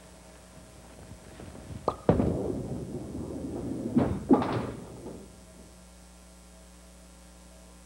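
Bowling ball thudding onto a wooden lane about two seconds in and rolling with a steady rumble, then a sharp crack about two seconds later as it hits the pin.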